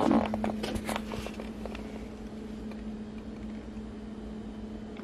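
A steady low electrical hum, with a few soft clicks and rustles in the first second or so.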